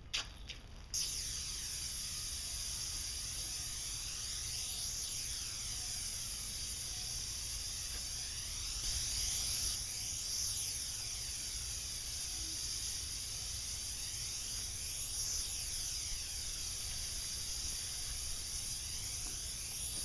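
Airless paint sprayer gun spraying paint: a steady high hiss that starts suddenly about a second in, with a slow sweeping shimmer as the gun is moved up and down.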